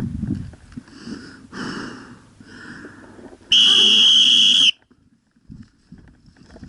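A loud, steady, high-pitched whistle blast lasting about a second, starting about three and a half seconds in and cutting off sharply. It comes after three fainter, shorter tones of the same kind.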